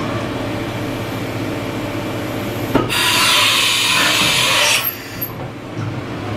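Haas VF-3 vertical machining center changing a tool over its steady running hum. A click nearly three seconds in is followed by about two seconds of loud compressed-air hissing, the spindle's air blast as the tool is released, which cuts off sharply.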